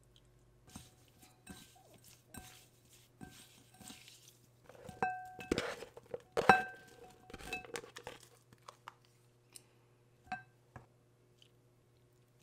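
Thawed squid pieces kneaded by hand with salt in a glass bowl: gritty crunching and squishing with light clinks against the glass. Then chopped green onion, onion and garlic are slid off a plastic tray into the bowl, knocking the glass so it rings briefly; these knocks, between about five and seven seconds in, are the loudest part.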